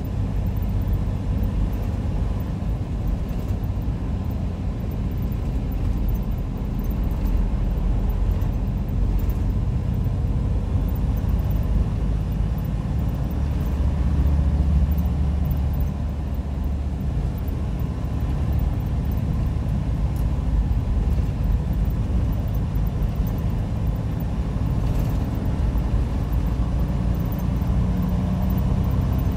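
Steady low rumble of a semi-truck's engine and tyres heard from inside the cab while driving at highway speed.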